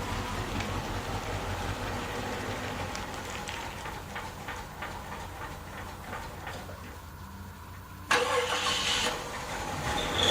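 Jeep Wagoneer's V8 engine running steadily during a test drive, slowly growing quieter. About eight seconds in a sudden louder sound cuts in for about a second, carrying a steady tone over a hiss.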